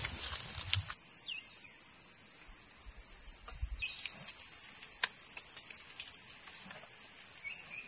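Steady, high-pitched drone of insects, with a few faint clicks.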